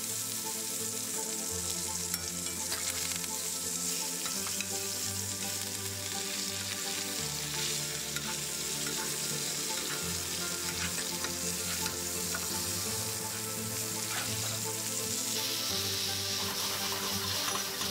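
Oyster blade steaks sizzling in butter in a cast-iron skillet, with a spoon basting them and clicking against the pan now and then.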